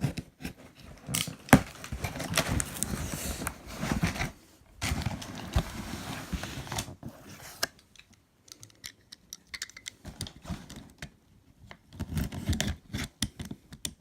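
Packing tape being cut and scraped off a cardboard shipping box: scratchy rustling and clicks in two long stretches, a quieter pause, then more clicks near the end.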